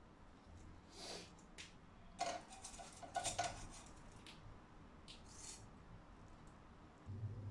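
Metal kitchen tongs clicking and tapping against a ceramic plate as hash browns are set down on a sandwich: a scattering of light clinks, busiest a couple of seconds in.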